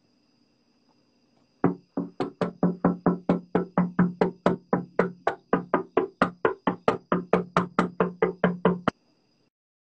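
A fist knocking hard and fast on a door, an even run of about four knocks a second that starts just under two seconds in and stops about a second before the end.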